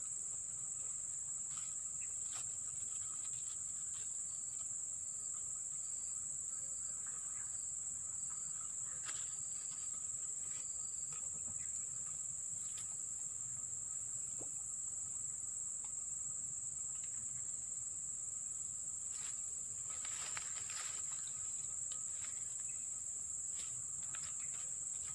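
Insects keeping up a steady, high-pitched chorus, with a fainter lower tone underneath and a few faint clicks.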